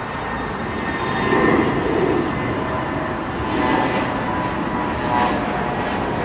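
Embraer E175 regional jet's two turbofan engines at climb power just after takeoff: a steady rushing jet noise with a faint whine, swelling a little about a second in.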